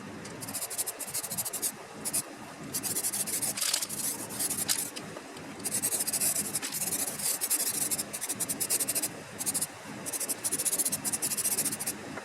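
Rapid back-and-forth rasping strokes of a hand tool scrubbing a hard surface, in runs of a second or two with short pauses between them.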